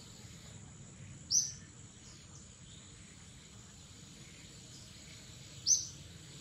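Two short, high bird chirps, about a second and a half in and near the end, over a steady high-pitched insect drone.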